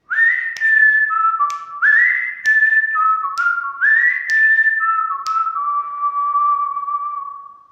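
Whistled outro tune in three phrases, each sliding up to a high note and stepping down, with a sharp click about once a second. The last note is held and fades out.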